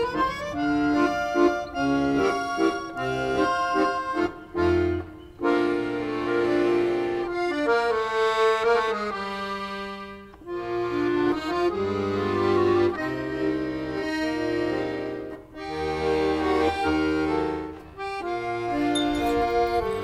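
Instrumental background music: a melody of held notes over a bass line, in phrases with short breaks.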